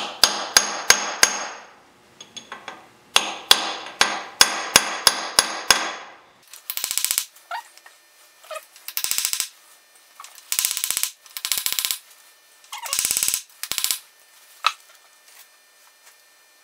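Small hammer tapping on a steel bearing cone seated in a lathe's cast-iron headstock, quick ringing metallic taps at about four or five a second in two runs, testing whether the cone is tight in its bore. These are followed by several short metallic rattling bursts, each under a second long.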